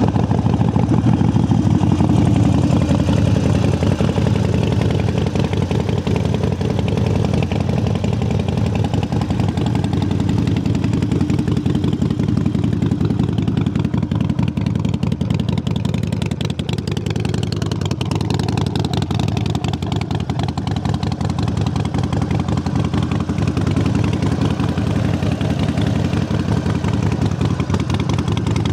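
A 2010 Harley-Davidson Sportster 1200 Nightster's air-cooled 1200 cc V-twin idling steadily just after being started. It runs loud through its black slash-cut dual exhaust pipes.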